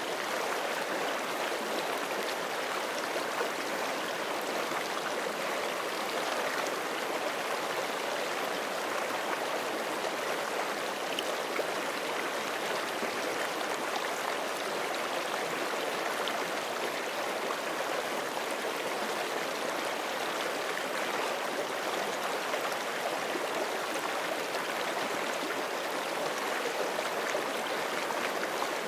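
Forest creek flowing steadily over rocks, a constant rushing and burbling of water.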